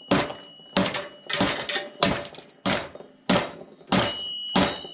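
Hammer blows driving a polyurethane bushing into a Ram 1500 control arm: eight sharp strikes at a steady pace of about one and a half a second, with a thin metallic ring hanging on after the last few.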